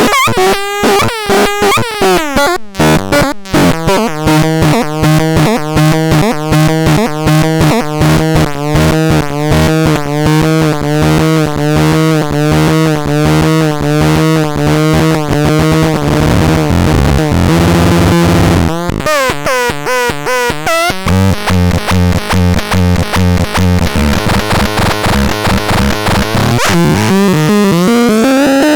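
Melodixon synthesizer playing a fast run of rapidly repeated notes over a held bass note. About two-thirds of the way through the run breaks off briefly, and a new pattern starts with a pulsing bass and higher tones.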